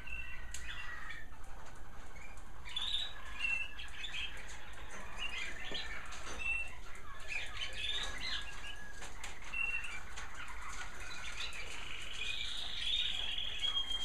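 Several American Singer canaries singing at once: a busy overlap of chirps and short trills, with one long steady whistled note held near the end.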